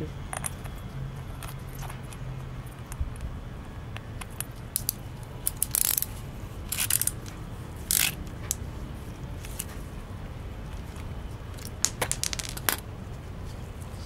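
Small carburetor parts handled in gloved hands: light clicks and clinks, with several short hissing bursts around the middle and a quick cluster of them near the end.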